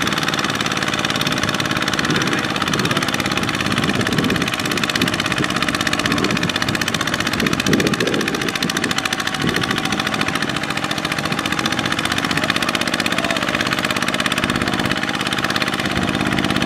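Single-cylinder diesel engine of a two-wheel walking tractor running steadily and loudly with a rapid, even firing beat, under load as it drags a trailer of rice sacks through deep mud.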